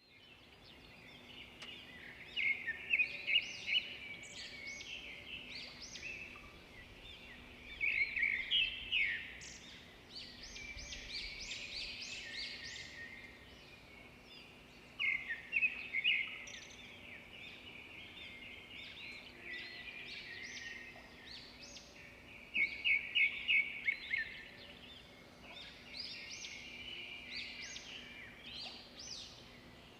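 Birds chirping and twittering, with several louder runs of rapid chirps, over a faint steady hum.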